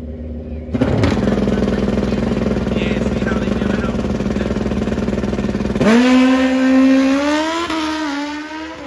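Drag-racing sport bike engine at the start line: it snaps up to high revs about a second in and is held there steadily for about five seconds. It then launches, its pitch climbing through the gears with short dips at each upshift, and fades as it pulls away down the strip.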